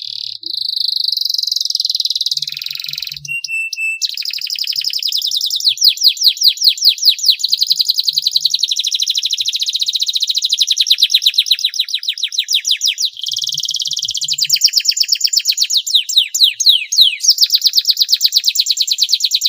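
Domestic canary singing a long, near-continuous song of rapid trills: fast repeated high notes rolling one into the next, with a brief change of phrase about three to four seconds in.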